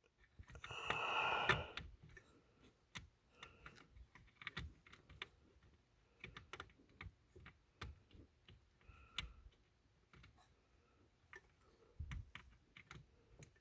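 Faint scattered small clicks and rustles of a hand groping among wiring and plastic under a car dashboard, with a longer rustle about a second in.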